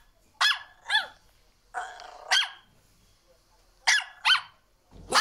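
A dog barking in short, sharp single barks, about six of them, some coming in quick pairs, with quiet gaps between.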